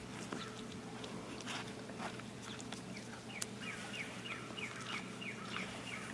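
A small bird calling in the background: a quick series of short descending chirps, about four a second, starting a little under four seconds in, with a few scattered faint clicks earlier.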